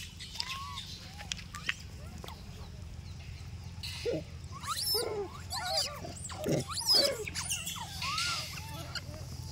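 A troop of rhesus macaques calling: short arched coos and squeals from several animals, bunching up and overlapping in the middle, with the loudest call near the end of that cluster. A steady low hum runs underneath.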